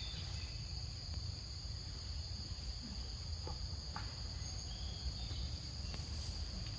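Insects calling steadily, a continuous high-pitched drone, over a low steady rumble, with a couple of faint clicks near the middle.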